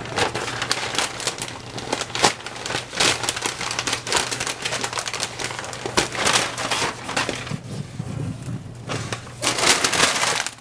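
Crinkling and crackling of a sticky-backed adhesive sheet being peeled from its backing and pressed into place, with many irregular sharp crackles, over a low steady hum.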